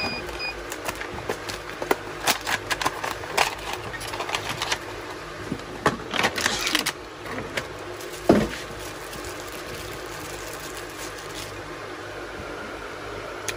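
Earbud packaging being handled and opened by hand: a run of clicks and rustles of box and plastic wrap, one louder knock about eight seconds in, then only faint background noise.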